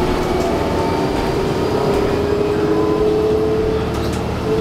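Cabin sound of a 2011 New Flyer D40LFR city bus under way: its Cummins ISL9 diesel and Allison B400R transmission give a steady whine over a low rumble. The whine slowly rises in pitch as the bus gathers speed, and there is a light rattle near the end.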